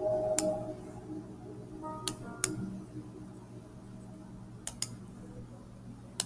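Faint computer mouse clicks, about six, some in quick pairs, over a low steady hum. A guitar note dies away at the start.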